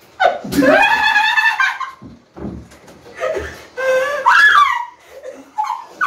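Women laughing loudly. It starts suddenly a moment in with a long high-pitched squeal, then breaks into several shorter bursts of laughter.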